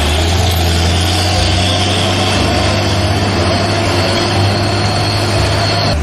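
Heavy box truck's diesel engine running at low speed close by, a steady low rumble, with a faint high whine that cuts off near the end.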